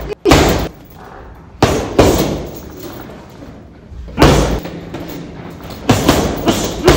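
Boxing gloves punching a heavy bag: about eight hard thuds at uneven intervals, some in quick pairs, each with a short reverberant tail.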